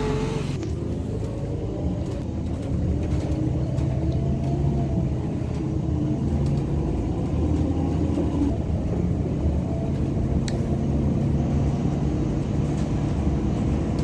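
Bus engine and road noise heard from inside the passenger cabin of a moving bus: a steady low drone with engine tones that rise and fall a little. A single sharp click about ten seconds in.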